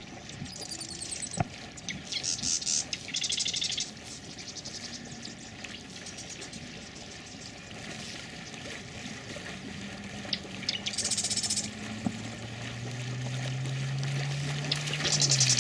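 A black retriever dog wading through shallow water, splashing in repeated bursts. A low steady drone comes in about two-thirds of the way through.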